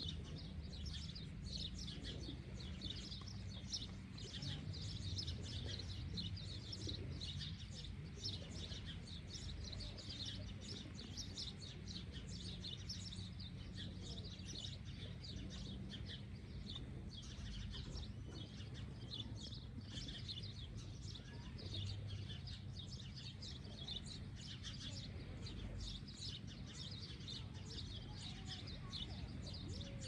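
Many small birds chirping, a dense, unbroken stream of short high calls, over a low steady rumble.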